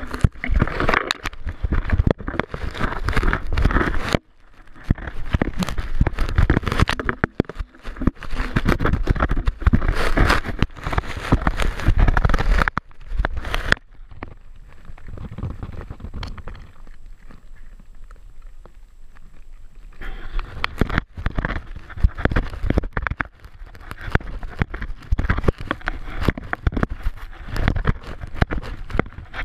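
Vizsla chewing and crunching a carrot right at the camera: a dense run of crunches, clicks and scrapes of teeth and muzzle against the camera. It eases off for several seconds in the middle, then picks up again.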